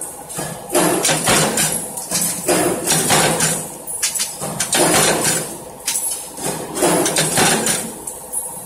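Mechanical punch press stamping butt-hinge parts from a steel strip: repeated, unevenly spaced metal clanks and clatter as the strip is fed through, over a steady low machine hum.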